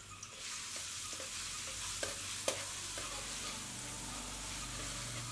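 Minced garlic sizzling in hot oil in a wok, stirred with a metal spatula. The sizzle picks up about half a second in and holds steady, with a few light taps and scrapes of the spatula on the wok.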